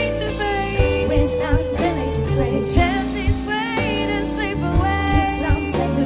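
Live band performance: women's voices singing with vibrato over electric bass, guitar, piano and a drum kit, with drum hits about once a second.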